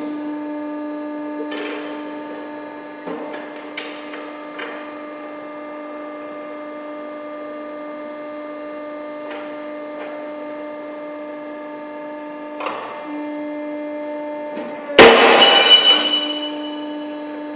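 Sunrise IW45MQ ironworker's motor switched on and running with a steady hum, with a few light metal knocks while the tooling is handled. About fifteen seconds in, a loud bang with metallic ringing lasting a second or so as the machine makes a working stroke through steel.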